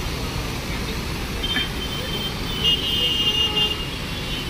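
Traffic on a flooded street: a steady low rumble of engines and churning water, with a few short, high horn beeps about one and a half seconds in and again around three seconds.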